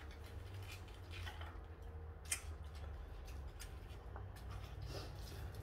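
Faint clicks and taps of chopsticks against each other and the dishes as people pick at food, with one sharper click about two seconds in, over a low steady hum.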